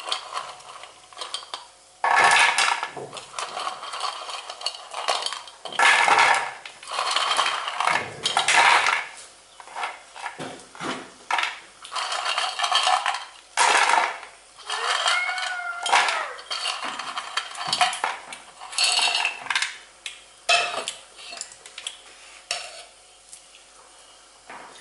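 Crisp fried rice-flour fingers clattering against a stainless steel bowl and onto a plate as they are tipped and picked out by hand, in irregular bursts of rattling and scraping.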